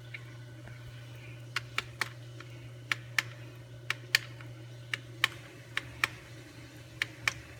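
Sharp clicks, mostly in pairs about a quarter second apart and coming roughly once a second: the button of an ultrasonic essential-oil diffuser being pressed over and over to cycle through its LED colours. A steady low hum sits underneath.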